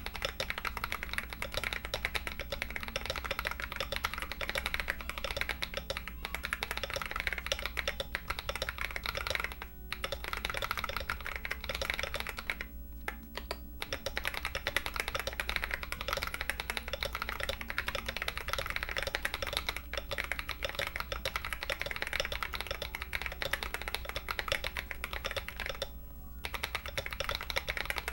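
Continuous fast typing on a 65% mechanical keyboard with stock Akko CS Lavender tactile switches, a PC plate, an aluminum case and PBT keycaps. Dense key clacks with brief pauses about ten, thirteen and twenty-six seconds in.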